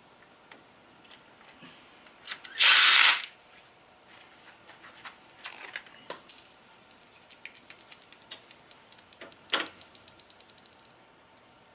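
Power drill/driver running bolts into the cover: a loud burst of about half a second about three seconds in, and a shorter one near 9.5 s. Between them come scattered metal tool clicks and a run of quick, evenly spaced clicks that come closer together.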